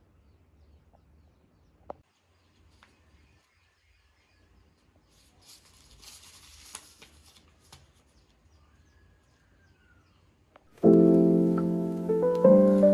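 Faint crackling of a paper snack wrapper handled in the fingers for a couple of seconds midway, with a few small clicks. Near the end, piano music comes in, much louder, playing separate notes.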